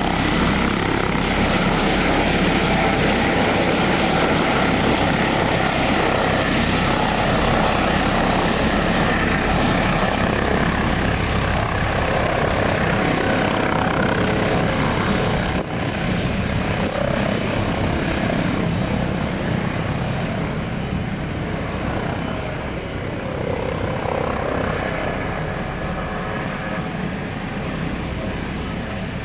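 Airbus H145 D3 helicopter, with its twin turbine engines and five-bladed main rotor, running at takeoff power as it lifts off and flies low. The sound stays steady for about the first half, then fades gradually as the helicopter moves away.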